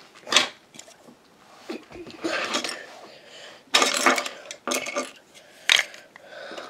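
Plastic Lego bricks being handled and pressed together: several short clicks and clatters with quiet gaps between.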